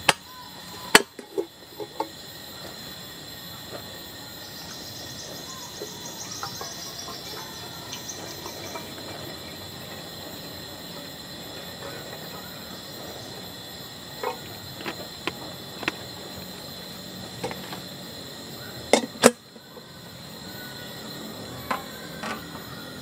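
Handling sounds at a portable butane gas stove: a sharp click about a second in, scattered light knocks, and a metal kettle clanking onto the stove near the end, over steady insect buzzing.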